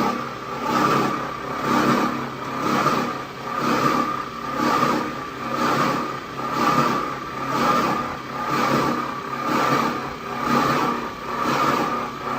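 CNC flanging machine running, a steady mechanical tone with rough scraping that swells evenly about once a second, in step with the rotating workpiece being flanged.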